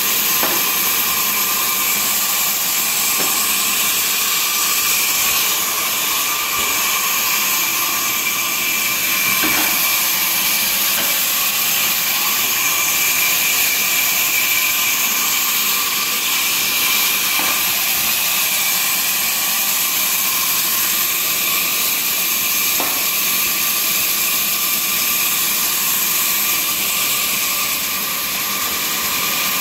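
A woodworking machine running steadily, with a strong high-pitched hiss and a constant whine and a few faint ticks.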